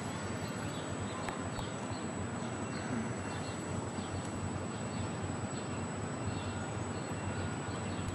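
Steady outdoor background noise with a low hum, and faint short high chirps repeating about twice a second.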